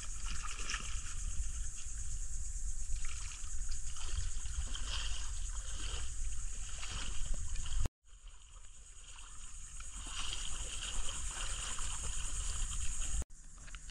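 Water trickling and splashing around a kayak, with small splashes scattered through it and a steady high drone of insects behind; the sound drops out briefly twice.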